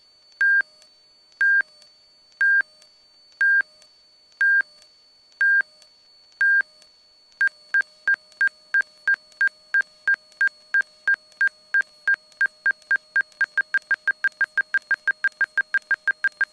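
Angle-of-attack stall warning beeping: short high beeps about once a second, then quickening from about seven seconds in to around five a second by the end. The faster beeping signals that airflow over the wing is growing critical as the plane nears a stall.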